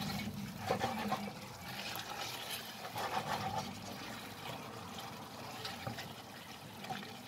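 Wooden spoon stirring and scraping bone-in mutton through thick, oily masala in a stainless steel pot as it fries, with the wet gravy sizzling and irregular knocks of the spoon against the meat and pot.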